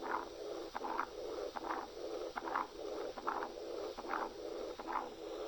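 Recorded heart sounds of combined aortic stenosis and aortic regurgitation: a systolic murmur and a diastolic murmur follow each other with only a short break, so the sound is close to a continuous murmur but not one. It repeats with every heartbeat, about once every 0.8 seconds.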